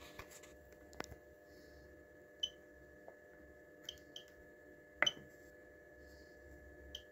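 Short electronic beeps and clicks from a boiler controller's menu knob being turned and pressed, about six scattered through, the loudest about five seconds in, over a steady low hum.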